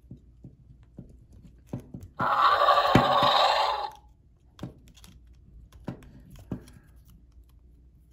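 A Jurassic World Dominion Therizinosaurus action figure's built-in electronic sound plays once from its small speaker, a loud dinosaur-like cry of almost two seconds that starts about two seconds in. Around it, a small screwdriver clicks and taps on the figure's plastic body.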